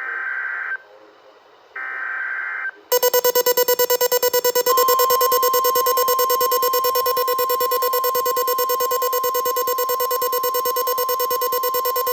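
Emergency Alert System SAME header: two short bursts of buzzy data tones, the last of the header's three repeats. About three seconds in an alert tone starts, a rapidly pulsing low buzz with a steady high beep (the 1050 Hz weather-radio alert tone) joining it a couple of seconds later.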